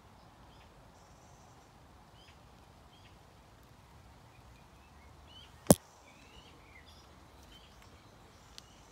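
Quiet outdoor ambience with faint, scattered bird chirps. A single sharp click stands out a little over halfway through, with a much fainter click near the end.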